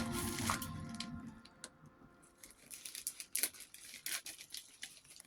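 Packaging being opened and handled by hand: scattered crinkles, rustles and small clicks. Background music fades out in the first second or so.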